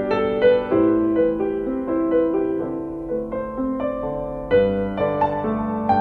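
Background piano music: a melody of struck notes over sustained chords.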